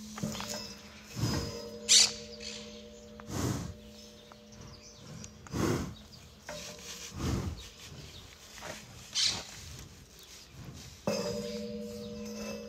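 White rhinoceros breathing and snorting right at the microphone: a string of loud puffs about every one to two seconds, the sharpest about two seconds in.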